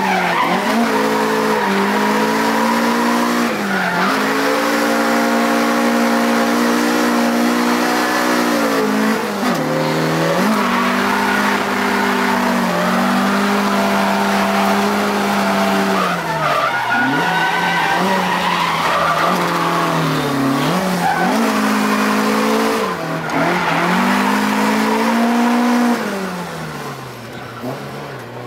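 Drift car's engine held at high revs, the pitch dropping and climbing again every few seconds, with tyres squealing as the car slides. It grows quieter near the end.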